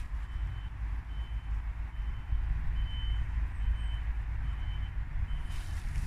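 A distant vehicle's reversing alarm beeping: a short, high, steady-pitched beep repeating a little faster than once a second, over a steady low rumble.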